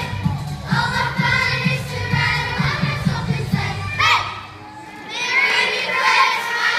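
Children's choir singing over an accompaniment with a steady beat; the song ends about four seconds in with a sliding vocal swoop. After a brief lull, many children's voices shout out together.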